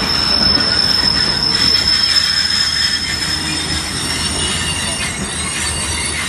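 Passenger train coaches rolling past close by: a steady rumble of wheels on rail with high-pitched wheel squeal over it.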